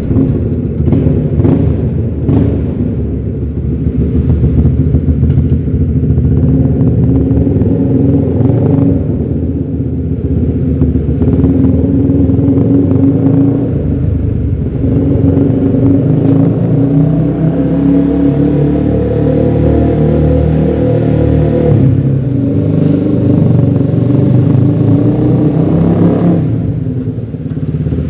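Honda CBR150R's single-cylinder engine, fitted with a slightly modified aftermarket exhaust, running under way on the road. Its pitch climbs steadily through the middle as the bike accelerates, then falls off briefly near the end as the throttle is closed.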